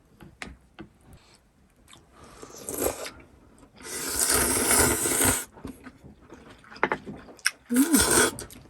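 Eating sounds: small clicks of chewing and utensils, with a long loud slurp of noodles in the middle. There is a short "mm" of pleasure near the end.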